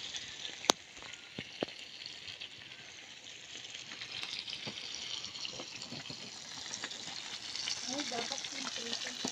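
Bangus (milkfish) sizzling as it fries in oil: a steady spitting hiss that swells a little partway through, with a few sharp clicks near the start.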